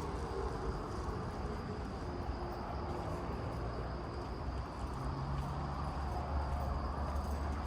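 Steady outdoor ambience: a low rumble and a hiss, with a faint steady high tone. The rumble grows stronger about five seconds in.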